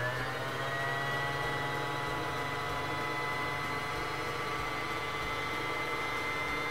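Singer Fashion Mate 3333 sewing machine's motor running in bobbin-winding mode, driving the bobbin on the winding spindle as the foot control is held down: a steady whine.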